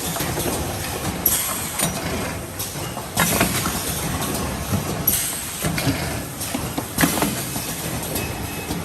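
Automatic blister card packaging machine running, with a clank and a burst of air hiss repeating about every two seconds as its pneumatic forming and sealing stations cycle.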